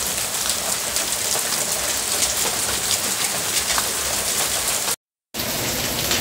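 Rain falling steadily in a dense, even hiss. It cuts out completely for a moment about five seconds in, then resumes the same.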